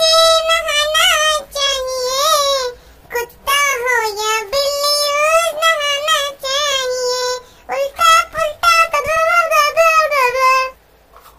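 A high-pitched voice singing a melody in short wavering phrases with brief breaks, stopping abruptly near the end.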